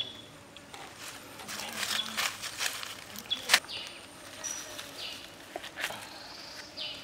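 Squid grilling on a skewer over charcoal embers, with irregular sharp pops and crackles, a cluster of them in the first half and the loudest about three and a half seconds in. Short high chirps sound now and then in the background.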